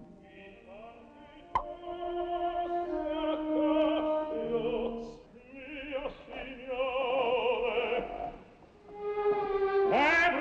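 Operatic singing with strong vibrato, long held notes in three phrases separated by short breaks. A single sharp click about one and a half seconds in.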